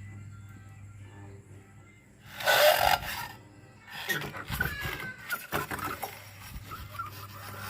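Clinks, knocks and clatter of metal parts and tools while a Honda Vario's CVT rear pulley is being taken off, with one loud burst of noise lasting about a second, about two and a half seconds in, and a low hum underneath.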